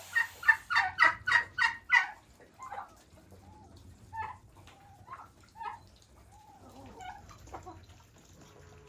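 Domestic poultry calling: a fast run of about seven loud calls in the first two seconds, then scattered softer calls.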